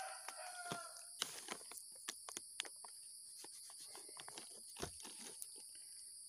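Carrots being pulled by hand from a soil-filled plastic grow bag: irregular crackling and snapping of the feathery tops, roots and soil, in many small clicks.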